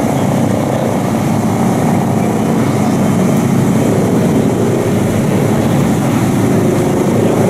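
Motor engines running steadily, a loud continuous noise with no break.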